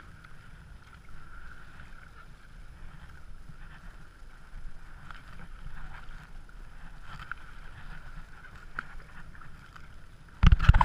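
Kayak paddle blades dipping and splashing in choppy water at irregular strokes, over a steady rumble of wind on the microphone. A sudden loud bumping clatter starts near the end.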